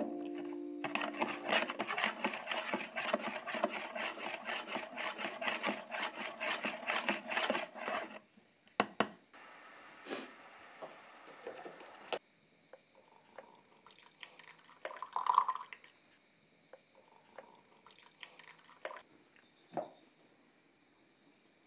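Spoon stirring liquid in a plastic jug: rapid, steady scraping and sloshing that stops after about seven seconds, followed by a few scattered knocks and clinks of kitchen things.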